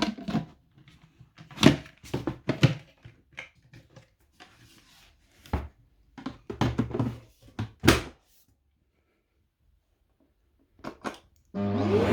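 A series of irregular clicks and knocks, then near the end a Shark cylinder vacuum cleaner's motor switches on, its whine rising in pitch and settling into a loud steady run.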